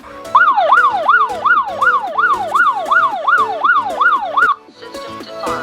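Electronic alarm siren of a Wi-Fi home security kit sounding. It is a loud wail that sweeps up and down about three times a second, starting a moment in and cutting off suddenly after about four seconds. Background music plays underneath.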